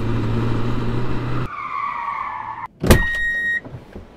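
Sport motorcycle engine running with wind noise, cut off abruptly about a second and a half in. Then comes a falling squeal, a single sharp bang, and a steady high electronic beep lasting about half a second.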